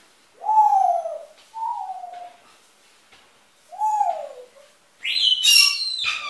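Pet birds calling from a cage: three separate mid-pitched calls, each under a second, rising briefly then sliding down, then about five seconds in a louder, higher-pitched call.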